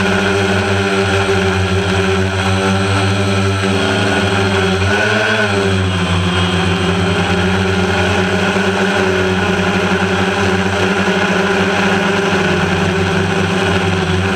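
Small drone's electric motors and propellers humming steadily, heard from the camera on board. The pitch briefly rises and falls about five seconds in.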